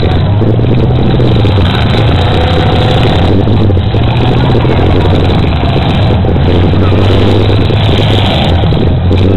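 Demolition derby cars' engines running and revving loudly in the arena, a dense continuous engine din that rises and falls in pitch.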